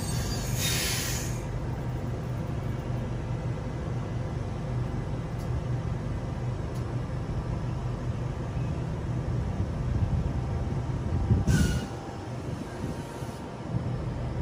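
Waratah Series 2 (B set) electric train standing at the platform, its onboard equipment giving a steady low hum. Two short hisses cut in, one about a second in and a briefer one near the end.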